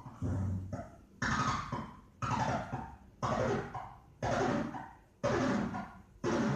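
Hand-drawn synthetic film sound, drawn directly onto the optical soundtrack: a string of short, abrupt pops and blips about one a second, each starting sharply and dying away quickly.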